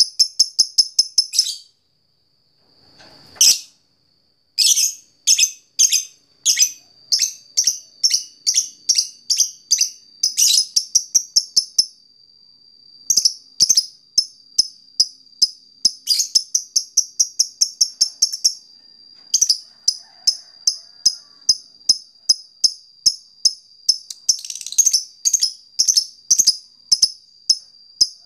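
Lovebird giving long runs of short, sharp, high chirps in the clipped 'ngetik' style of a fighter lovebird calling out a rival, about two a second, with brief pauses. A thin steady high tone sits under the chirps.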